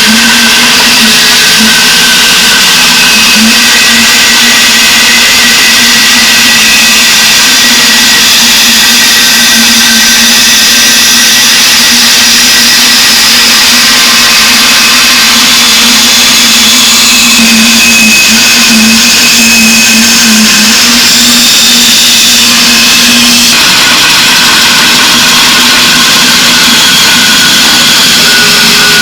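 A woodworking power tool's electric motor running steadily with a constant hum and loud hiss; the sound shifts slightly about 23 seconds in.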